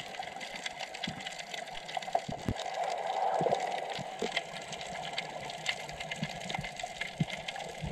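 Underwater sound picked up by a submerged camera: a steady, muffled water hiss with many scattered clicks and crackles.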